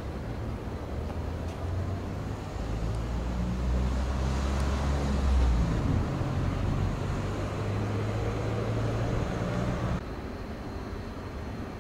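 Low, steady engine-like hum over outdoor background noise, swelling a little around the middle and cutting off suddenly about ten seconds in.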